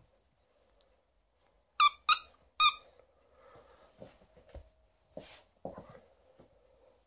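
Squeaker inside a plush bone-shaped dog toy squeezed by hand three times in quick succession about two seconds in, each a short, high squeak. Faint soft knocks and rustling of handling follow.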